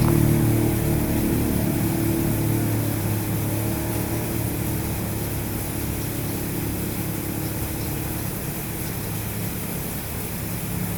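Steady rush of flowing sewer water and pump machinery at a sewage lift station, with a low machine hum that fades within the first second or so and a slowly weakening rushing noise after it.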